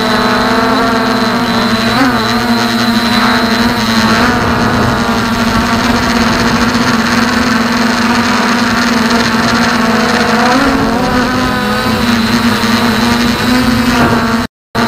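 Bugs 2 quadcopter's motors and propellers whining steadily, heard from the camera mounted on the drone, the pitch wavering slightly with throttle changes. The sound cuts out briefly near the end.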